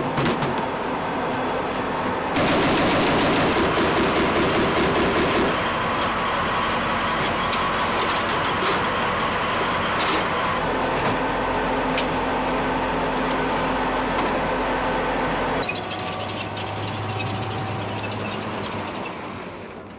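Inside an AAV-7A1 amphibious assault vehicle, the tracked vehicle runs with a dense, steady clatter. About two seconds in comes a burst of rapid automatic gunfire, followed by a few single reports later. Toward the end the sound changes to the AAV driving outside on gravel, then fades.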